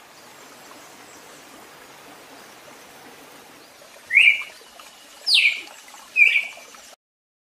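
A bird calling three times over a steady faint background hiss: three short, loud calls about a second apart, each a quick sliding note, the middle one sweeping down from high.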